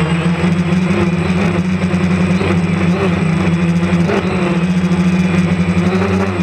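DJI Phantom quadcopter's motors and propellers, heard from the camera mounted on the drone: a loud, steady buzzing hum, its pitch wavering slightly a few times as the motors adjust speed.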